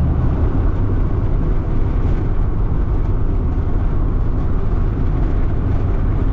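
Steady rumble of a moving car heard from the back seat inside the cabin: engine, tyre and road noise at driving speed on a paved road.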